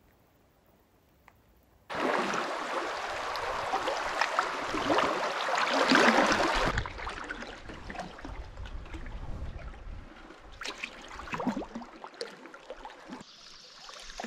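Quiet for about two seconds, then a sudden loud rush of noise for about five seconds. After that comes a canoe paddle working through river water, with a few distinct strokes, and near the end a shallow river riffle trickling.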